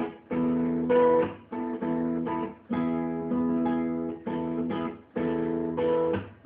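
Acoustic guitar strummed in repeated chords, each ringing for about a second with short breaks between, as the outro of the song after the last sung line.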